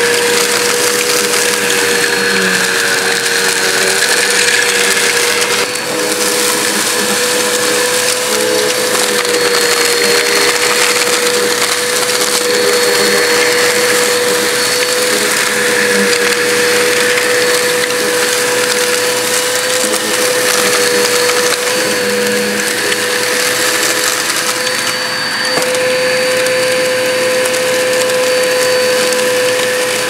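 Insignia bagless upright vacuum cleaner running steadily with a high motor whine, sucking up sand with a gritty rushing crackle.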